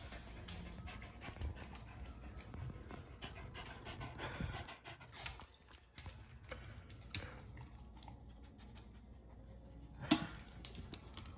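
Beagle panting, with light claw clicks and taps as it moves about on a hardwood floor, and a sharper knock near the end.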